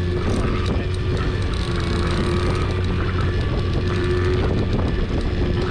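Boat motor running steadily, a constant low hum with a steady higher tone over it.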